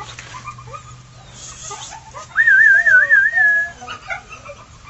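A person whistling a single warbling note for about a second and a half, a call to the mother dog. Young pit bull puppies whimper faintly around it.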